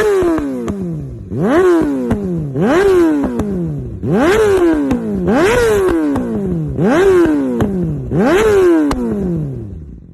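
Yamaha YZF-R6 inline-four with an Akrapovič exhaust, revved in about seven quick blips. Each rev climbs sharply and then falls back more slowly, with pops and crackles from the exhaust as the revs drop. The sound fades away near the end.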